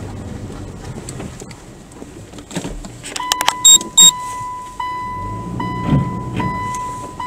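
Car creeping over a muddy, overgrown track with its engine running low. About three seconds in come two sharp, high electronic beeps, then a steady electronic warning tone that restarts a little more than once a second.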